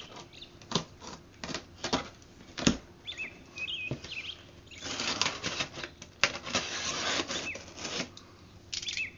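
Cardboard shipping box being handled and its packing tape slit with a box cutter: scattered taps and knocks, then a few seconds of rasping cutting and scraping about five seconds in.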